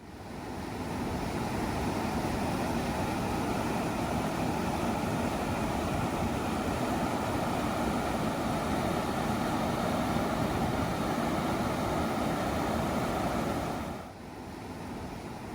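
Waterfall of the Jemez River rushing through a travertine rock dam: a steady rush of falling water that fades in and drops quieter about fourteen seconds in.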